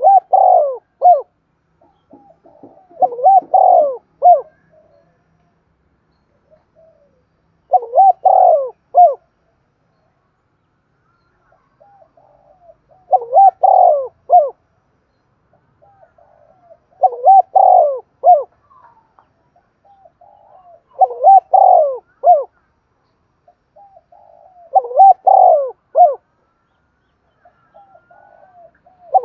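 Spotted dove cooing: a phrase of a few soft lead-in notes and three or four loud, curving coos, repeated about every four seconds.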